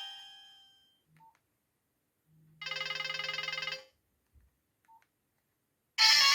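Nokia 1280 mobile phone ringtones through its small speaker: the last note of one ringtone dies away, a short beep sounds, a trilling tone plays for about a second, another short beep follows, and the next ringtone starts loudly near the end.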